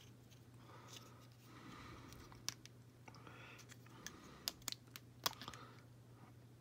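Small sharp clicks and taps of fingers and fingernails on a tiny plastic doll clutch bag as it is pried at to open it, a handful of clicks over a few seconds, with soft breathing close to the microphone and a low steady hum.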